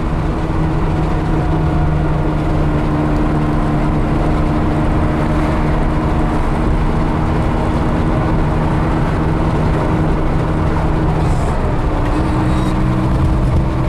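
Porsche 911 SC's air-cooled flat-six engine running steadily while the car is driven, heard from inside the cabin along with road rumble. The engine note changes about twelve seconds in.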